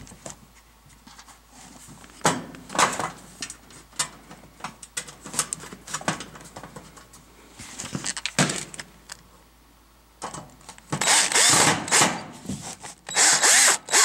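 Handheld drill-driver running in two short bursts about two seconds apart, driving sheet-metal screws into the range's terminal-block cover. Before that, light knocks and clicks as the metal cover and a screw are handled.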